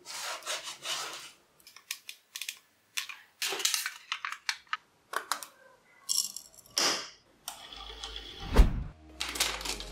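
Quick series of short craft-work sounds: a blade scoring thin soda-can aluminium along a ruler, the sheet crinkling and rattling as it is handled, and sharp clicks and taps, with a loud thump near the end.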